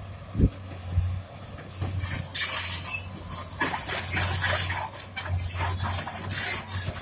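Rock-cutting machinery at work: shrill metallic squealing and scraping that starts about two seconds in and comes in irregular surges over a steady low hum.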